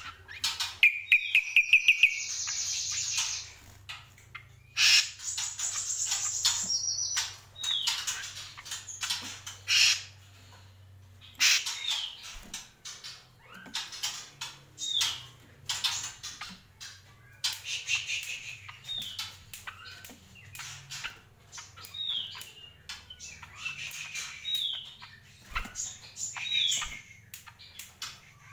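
Caged cucak kombo, a small honeyeater, singing: a loud, fast trill and rattling phrases in the first few seconds, then short down-slurred whistled notes repeated every couple of seconds. Many sharp clicks are mixed in throughout.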